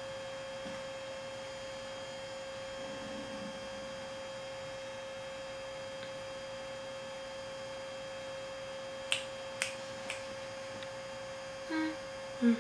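Steady electrical hum with a constant tone, and three sharp clicks about nine to ten seconds in. A short bit of voice comes near the end.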